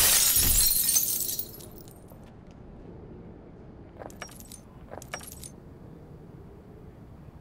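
Plate glass shattering as a body crashes through it, shards tinkling and scattering for about a second and a half. Then two footsteps crunch on broken glass, about four and five seconds in.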